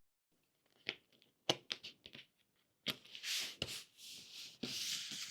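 Hands handling a mini jigsaw puzzle: a few light clicks as pieces are set down, then soft rubbing and sliding sounds twice near the end.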